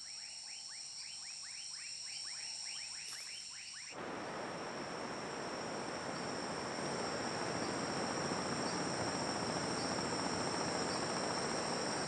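Rainforest ambience: a steady high insect chorus, with a quick run of short chirping calls, about five a second, for the first few seconds. Then it switches abruptly to an even rushing noise that grows slightly louder, the insects still shrilling above it.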